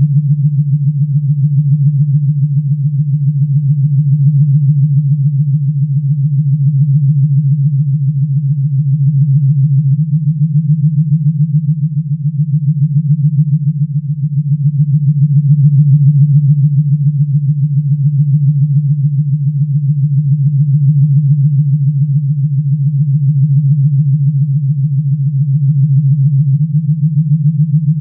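Low synthesized science-fiction hum from a Star Trek sound library, pulsing evenly about five times a second. Its pitch shifts slightly about ten seconds in and again near the end.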